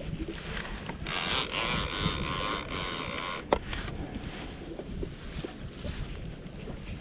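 Conventional fishing reel's drag buzzing for about two seconds as a hooked white sturgeon pulls line off the spool, then one sharp click. Low wind and water rumble runs underneath.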